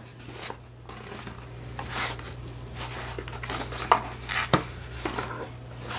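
Unpacking and handling noises: scattered rustling with a few light clicks and knocks, a sharper one about four and a half seconds in, over a steady low hum.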